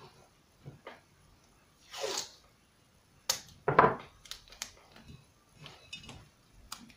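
Blue painter's tape being pulled and pressed around a lamp's bulb holder: a short tearing swish about two seconds in, then a sharp click and a knock, with small handling ticks and rustles.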